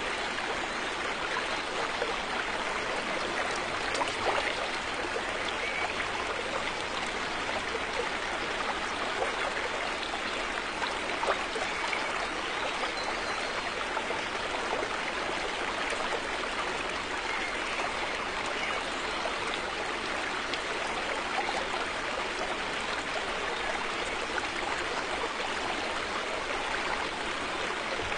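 River water flowing over stones, a steady rushing with small splashes and trickles.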